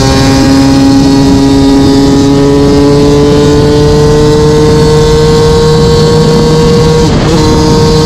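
Yamaha YZ250 single-cylinder two-stroke engine pulling under steady throttle, its note rising slowly. About seven seconds in the note breaks briefly and picks up again lower.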